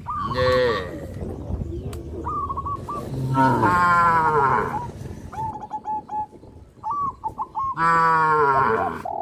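Cattle mooing: three moos, a short one at the start and two longer ones about four seconds apart. Short repeated bird calls come in the gaps between them.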